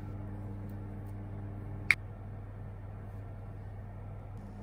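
Induction hob humming steadily under a saucepan of water heating up, with one sharp click about two seconds in.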